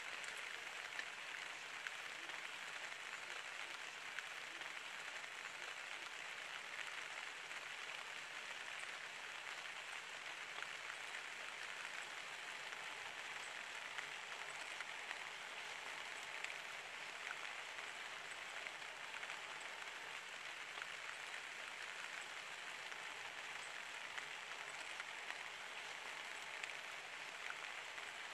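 Steady rain falling on trees and foliage: an even hiss with scattered drip ticks.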